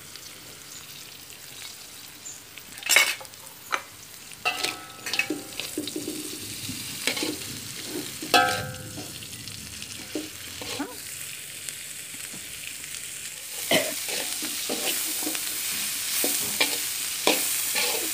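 Chopped winged beans sizzling in hot oil in a metal wok, stirred with a metal utensil that scrapes and knocks against the pan. About two-thirds of the way through, the sizzle gets louder and the knocks of the stirring come more often.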